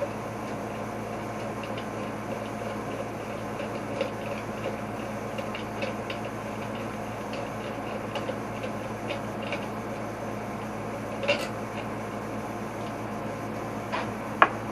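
Scattered light clicks and taps of parts and hand tools being handled, over a steady hum, with a louder click about eleven seconds in and a sharp one near the end.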